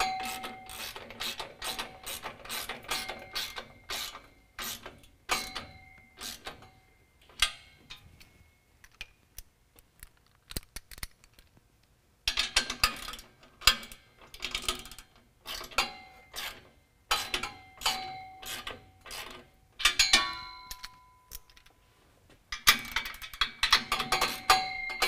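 Ratchet wrench clicking in quick runs as it tightens the 9/16-inch bolts of a steel exhaust flange joint, some strokes ringing briefly through the metal. The clicking stops for about three seconds midway, then resumes.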